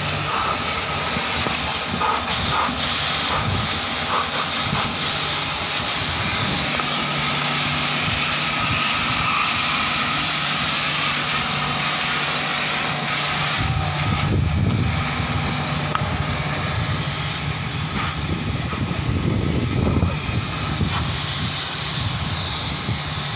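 High-pressure water spray hissing steadily against the finned core of a compressor aftercooler as it is washed, with a low machine hum underneath that grows stronger about halfway through.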